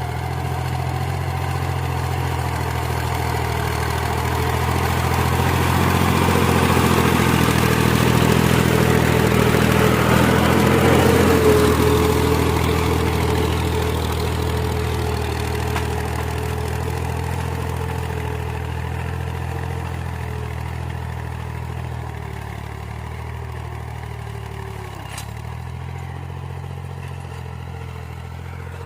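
Tractor engine running steadily while ploughing. It grows louder until a little before halfway, then slowly fades.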